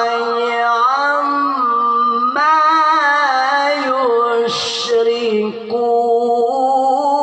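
A male Quran reciter chanting in melodic tilawah style, drawing out long ornamented notes on "subhanallahi 'amma", with a step up in pitch about a third of the way in. A brief breathy hiss comes about two-thirds through.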